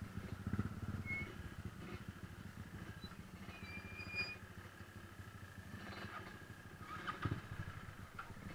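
Trail motorcycle engine running at low revs with a steady, even rumble as the bike creeps over rocky ground. A few faint, short, high whistles sound over it about a second in and again around four seconds.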